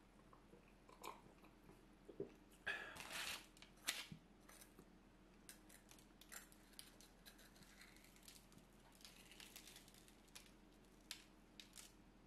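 Faint eating sounds of crisp fried food: a crunchy bite and chewing about three seconds in, then scattered small crackles and clicks as the food is handled and torn apart.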